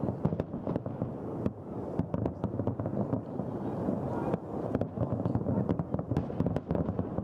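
A mass barrage of aerial fireworks shells bursting: many overlapping bangs and crackles in quick succession, with no break.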